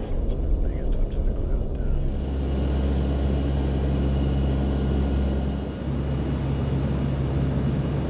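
Aircraft engines droning steadily, heard from inside the cabin of a search plane, with a faint high whine above the low hum.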